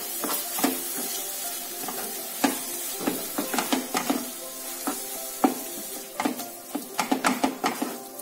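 Wooden spatula stirring a wet mash of grated bottle gourd in a nonstick frying pan: irregular clicks and scrapes of the spatula against the pan over a steady sizzle, the strokes coming faster near the end.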